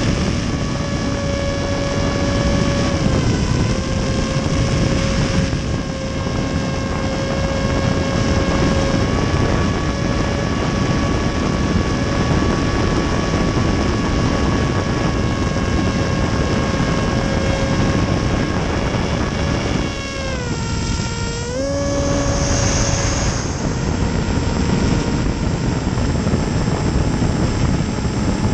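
Electric motor and propeller of a HobbyZone AeroScout S 1.1m RC plane whining steadily in flight, heard from a GoPro strapped to the plane, under heavy wind rush. The pitch dips briefly about three seconds in, and dips deeper for a second or two around twenty seconds in, as the throttle is eased, then comes back up.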